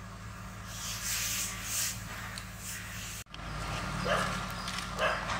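A wok of boiling turmeric water splashing and hissing as a whole goat liver goes in. After an abrupt cut, a dog barks several short times nearby.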